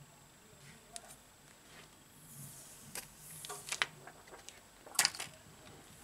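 Hands pressing and handling a smartphone whose display module has just been refitted: light scattered clicks and taps of fingers on the glass and frame, a short rubbing hiss a couple of seconds in, and the sharpest click about five seconds in.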